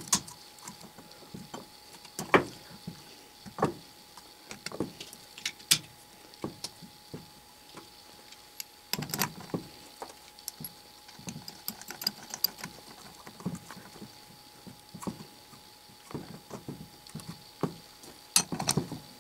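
Irregular light metallic clicks and knocks as small steel parts of a dividing head are handled and fitted: sector arms and spring clip going on over a 3D-printed plastic index plate, then the index crank arm and its nut. A faint steady hum runs underneath.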